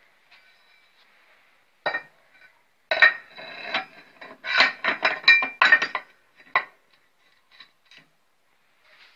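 Steel parts clinking and knocking together as a welded steel bracket is handled and set against a steel machine frame. One knock comes about two seconds in, then a quick run of sharp metallic clanks up to about seven seconds, then a few faint ticks.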